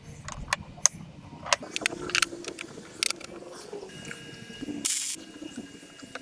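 Scattered sharp metallic clicks and clacks from handling steel box tubing, magnetic welding squares and a spring welding earth clamp, with a short scrape about five seconds in.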